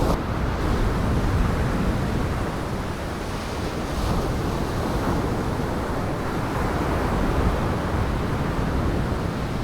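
Gale-force wind buffeting the microphone over heavy surf breaking on the shore: a steady, rumbling rush of wind and waves.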